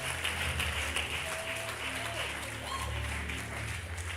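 Congregation applauding and calling out over a church band's soft keyboard-and-bass underscore.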